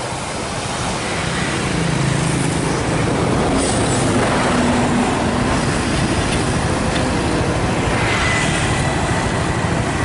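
Steady road-traffic noise from a moving vehicle following an intercity bus: engine rumble and tyre and road hiss.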